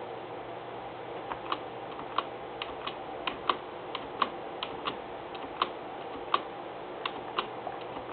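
Sharp clicks of a computer keyboard and mouse being worked, at irregular intervals of two to three a second, beginning about a second in, over a steady background hiss.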